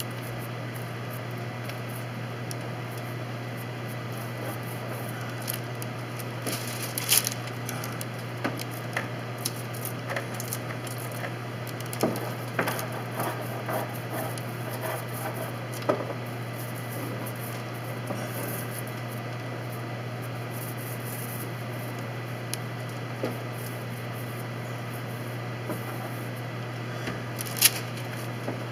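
Light taps, knocks and scrapes of painting work inside a wooden boat hull, over a steady low hum. The sharpest knocks come about seven seconds in and again near the end.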